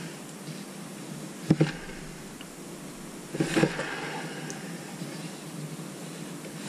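Lazy Susan turntable carrying a painted canvas, spun round by hand: two brief clusters of knocks and rubbing, about a second and a half in and again about three and a half seconds in, as the hand pushes it on.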